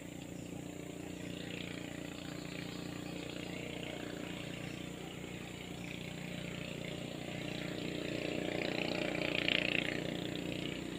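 An engine droning steadily, slowly growing louder, with a brief higher hiss about nine seconds in.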